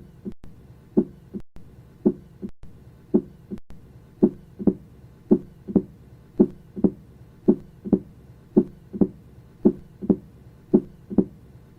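Heart sounds heard through a stethoscope, a steady lub-dub beat about once a second. It begins with normal heart sounds, and about four seconds in changes to a loud first heart sound followed by an opening snap, the early signs of mitral stenosis.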